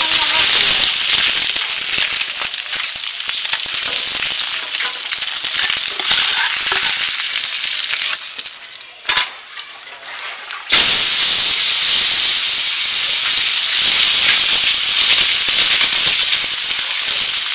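Bheda fish (Gangetic leaffish) frying in hot oil in a metal karahi: a steady, loud sizzle with crackles and spatula scrapes. The sizzle drops quieter for a couple of seconds past the middle, then comes back loud all at once.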